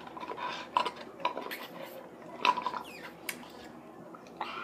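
A paper cup and plastic drinking straw being handled on a table, giving several short clicks and knocks, the loudest about two and a half seconds in.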